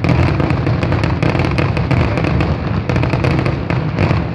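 Fireworks display going off in a dense, rapid barrage of bangs and crackling, with no pause between bursts.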